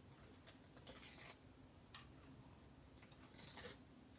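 Faint rustling and a few soft crinkles of the paper backing being peeled off foam adhesive strips, a little louder about three and a half seconds in.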